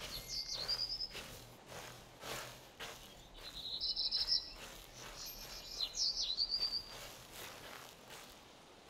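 A bird singing three short, high phrases a few seconds apart, each ending in a quick trill, over soft rustling noise.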